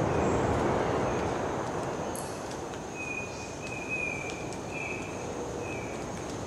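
Rainforest ambience: a steady low rushing noise, loudest at the start, under a thin high insect drone, with a bird giving four short flat notes from about halfway through.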